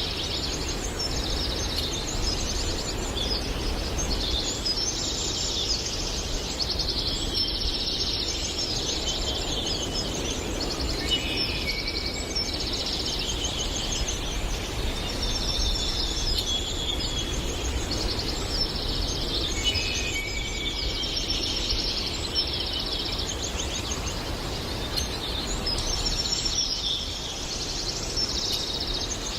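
Several songbirds singing in a forest, short phrases and trills overlapping almost without a break, over a steady background rush.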